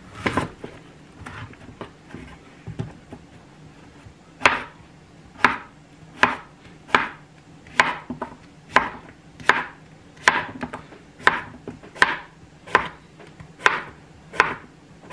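Kitchen knife slicing a zucchini on a plastic cutting board. After a few light, scattered taps, the blade knocks on the board in steady strokes a little over once a second, about fourteen times.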